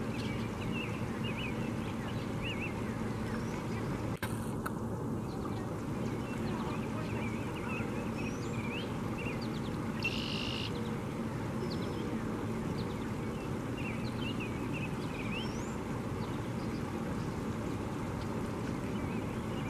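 Small birds chirping and calling repeatedly in short, high notes, with one louder, buzzy call about ten seconds in, over a steady rushing background of flowing river water.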